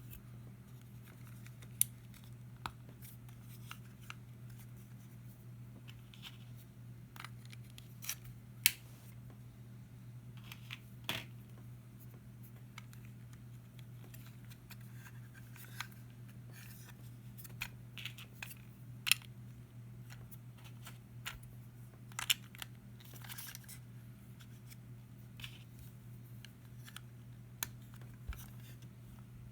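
Plastic Lego pieces clicking and snapping together as a small set is built by hand: scattered sharp clicks with gaps of a second or more between them, over a steady low hum.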